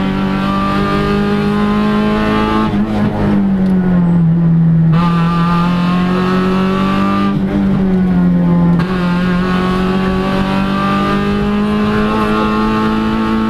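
VW Polo rally car's engine, heard from inside the cockpit, running hard on a twisting stage. Its note falls and climbs several times as the car goes through bends, with a sudden jump in pitch about nine seconds in.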